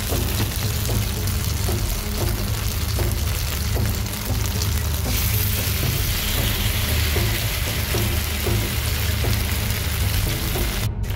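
Marinated chicken sizzling on a hot ridged grill pan, the hiss growing louder about halfway through and dropping out for an instant near the end, over background music with a steady beat.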